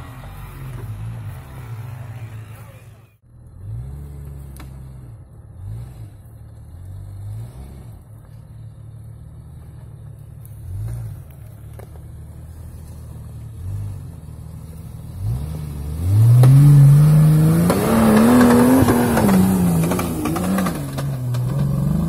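Off-road 4x4's engine revving again and again, its pitch rising and falling, with the loudest and longest rev in the last third.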